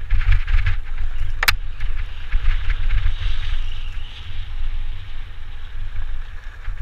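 Mountain bike rolling along a dirt singletrack: a steady low rumble of wind and trail bumps on the camera microphone, with tyre and drivetrain rattle and one sharp click about a second and a half in.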